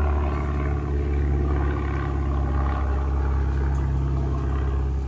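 Steady low drone of an idling engine, easing off slightly toward the end.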